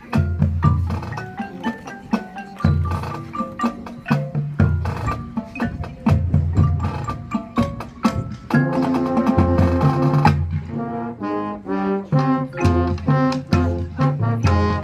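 Marching band playing a percussion-heavy passage: low drums and quick mallet-keyboard notes in a fast rhythm, with a held chord about two-thirds of the way through, followed by short repeated chords.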